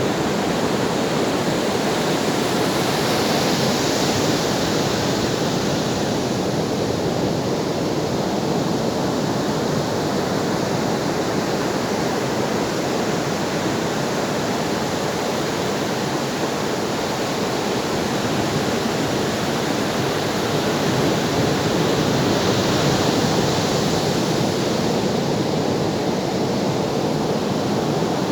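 Ocean waves washing onto the shore in a continuous rush, with the hiss swelling about three seconds in and again around twenty-three seconds as waves break.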